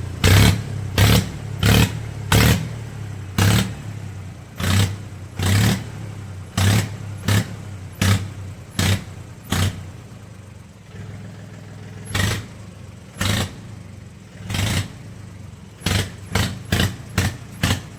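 Tractor engine running through a Royal Enfield Bullet motorcycle silencer, giving a run of loud popping bangs from the exhaust over a steady low engine note. The bangs come about once a second, pause briefly past the middle, then come faster, about three a second, near the end.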